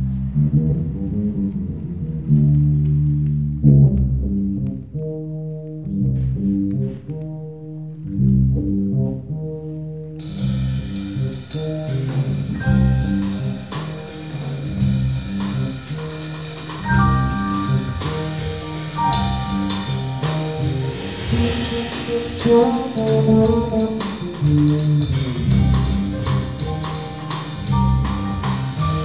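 Electric bass playing a repeating low jazz line. About ten seconds in the sound turns fuller and brighter, with higher notes sounding above the bass line.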